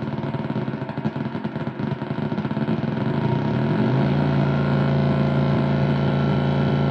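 Distorted electronic noise drone: a dense, buzzing texture with fast flutter that glides up and, about four seconds in, settles into a steady low drone.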